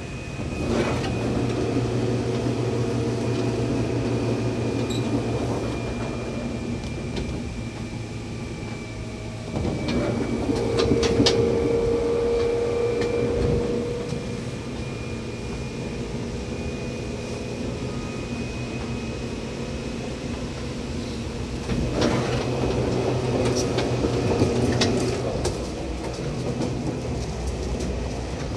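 Seibu 2000 series electric train heard from inside the car while running: a steady rumble and hum of motors and wheels on the track. A higher-pitched hum rises over it for a few seconds about ten seconds in, and there are clicks and knocks from the wheels and rail joints around eleven seconds and again after about twenty-two seconds.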